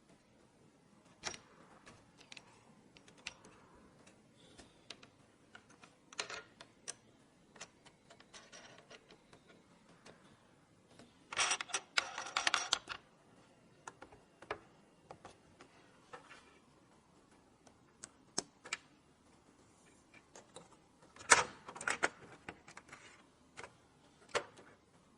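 Scattered small clicks and taps of computer parts being handled and fitted together during a PC build, with a dense run of clicks about eleven seconds in and another around twenty-one seconds.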